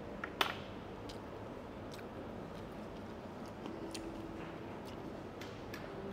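Scattered light clicks and taps of dishes and utensils being handled at a table, with one sharper click about half a second in, over steady background noise.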